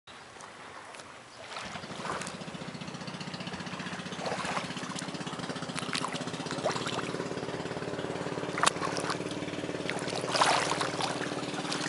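A boat engine running steadily with a fast, even beat, starting about a second and a half in. Water splashes and trickles now and then as feet wade through shallow water, the sharpest splash near nine seconds.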